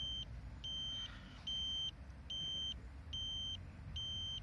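Radiation pager with a caesium-iodide scintillation detector beeping: a regular series of short, high electronic beeps, a little more than one a second. It is alarming on elevated radiation while held right against a radioactive object and counting the background.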